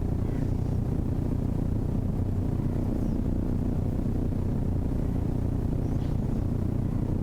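Steady low rumbling hum that does not change.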